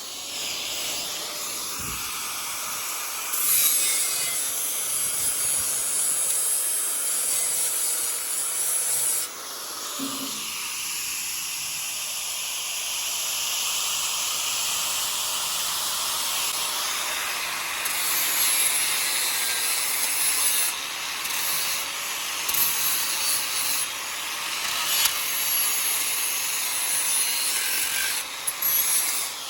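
TIG welding arc on aluminum, a steady crackling hiss that breaks off and restarts several times as the bead is laid along the crack.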